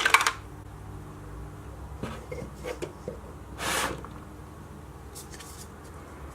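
Small toy items being handled: a few light clicks and knocks, with a brief rustle a little before the middle.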